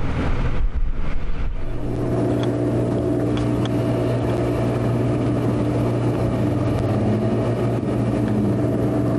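An engine running steadily at an even pitch over outdoor noise, setting in about two seconds in.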